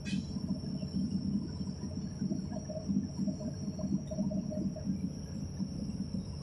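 Excavator's diesel engine idling, an uneven low rumble heard from the cab, with a thin steady high-pitched whine over it.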